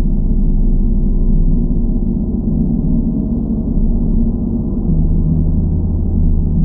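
Gong sounding in a sustained wash of deep, overlapping tones with no distinct strikes, a lower hum swelling up about five seconds in.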